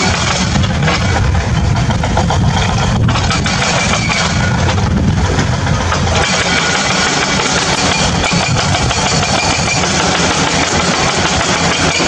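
A steady engine-like running sound with a low hum that keeps on without a break.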